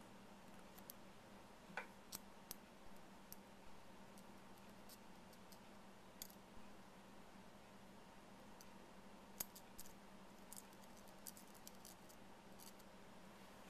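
Near silence: a faint steady hum with scattered faint clicks and ticks, most of them in the second half, from a syringe needle and fingers handled against the metal top plate of a tweeter compression driver while ferrofluid is put into its gap.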